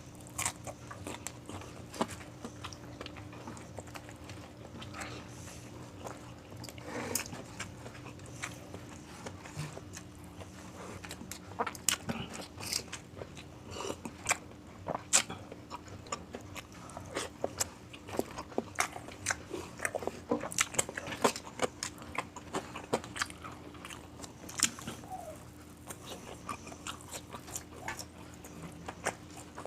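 Close-miked eating: crunchy bites and chewing of crispy fried food, with many irregular sharp crunches.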